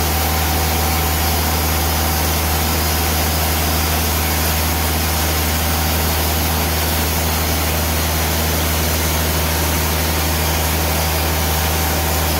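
TimberKing band sawmill running steadily under load, its engine and band blade cutting through a log, on a blade the operator reckons is probably on its last cut.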